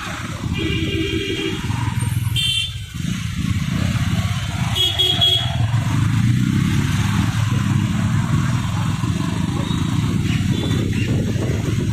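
Motorcycle riding through town traffic: a steady rumble of engine and wind, with three short vehicle horn honks in the first five seconds.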